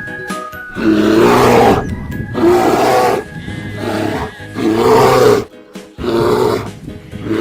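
An animal sound effect: a loud roaring call repeated about six times, each under a second long, over cheerful children's background music.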